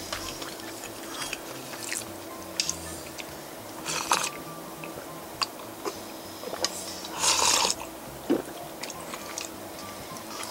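A person eating: chewing, scattered light clicks of chopsticks and bowl, and a louder slurping sip of miso soup from a wooden bowl about seven seconds in.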